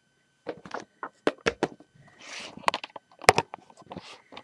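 Handling noise: a quick, irregular run of sharp clicks and knocks, with a short rustling scrape in the middle and another near the end, as LEGO pieces are moved about by hand.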